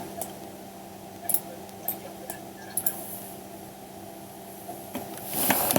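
Scattered light clicks of a computer mouse and keyboard over a steady electrical hum, with a short louder rustle near the end.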